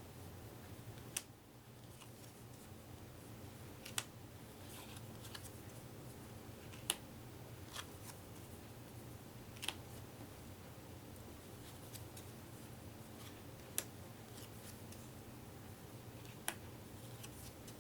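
Thick playing cards being laid down one at a time, a sharp short click every few seconds, about six in all, over a faint steady low hum.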